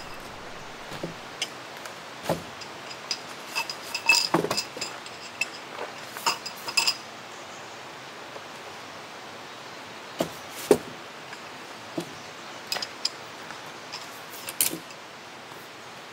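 Hard objects being handled: scattered clinks and knocks, a few of them ringing briefly, coming in two clusters, the first about three seconds in and the second about ten seconds in, over a steady background hiss.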